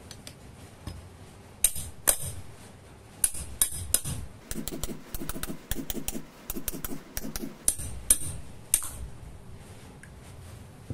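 Sharp metal strikes on a lathe spindle shaft as it is driven through a grease-packed ball bearing: a few separate hits, then a quick run of lighter taps for about three seconds, then two more hits.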